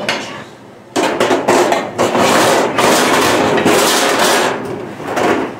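Pots, pans and lids clattering and knocking together as someone rummages through a kitchen cabinet for a glass pot lid. The clatter starts about a second in and dies down near the end.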